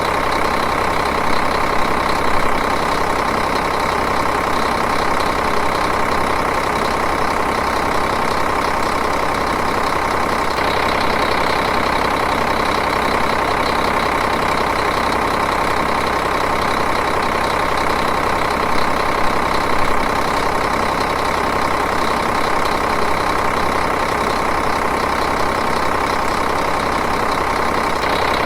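Diesel engine idling steadily, with an even, rapid clatter.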